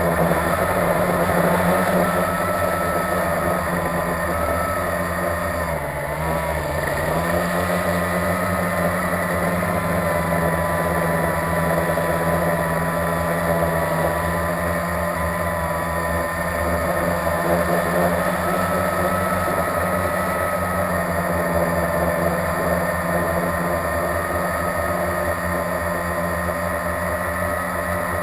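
Blade 350QX quadcopter's four electric motors and propellers buzzing steadily in flight, recorded from the camera it carries. About six seconds in the pitch dips briefly as the motors slow, then climbs back to a steady hover buzz.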